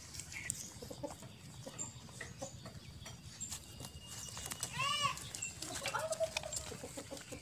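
Newborn puppies nursing from their mother: scattered small suckling clicks and short squeaks, with one high, arching squeal about five seconds in and a few more squeaks just after.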